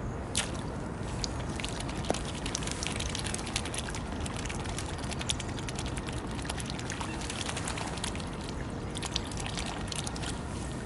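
Mute swans feeding at the water surface, dipping and snapping their bills at floating pellets: many small wet clicks and splashes over a steady low background rumble.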